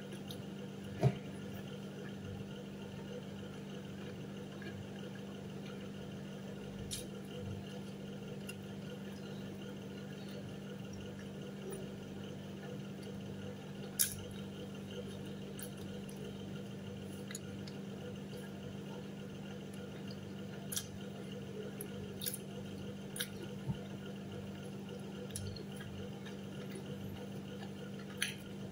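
Soft eating sounds of someone chewing and handling a slice of pizza: a few sharp mouth clicks, the strongest about a second in and midway, with more near the end, over a steady room hum.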